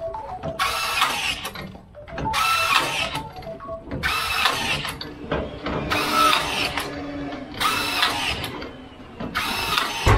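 Cordless rebar tying tool firing again and again as rebar cage joints are tied, each tie a short motor whir of about a second, one every second and a half or so.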